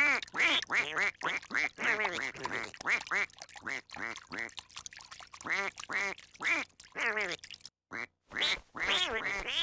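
Sound Ideas stock cartoon duck quacking effect: a rapid run of short quacks, several a second, broken by a brief silent gap about eight seconds in.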